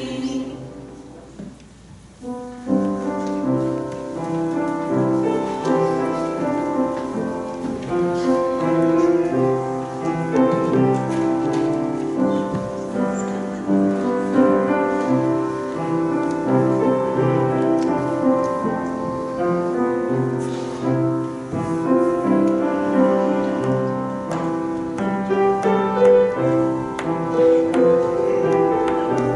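A choir's final chord fades away, then a piano starts playing about two and a half seconds in and goes on steadily.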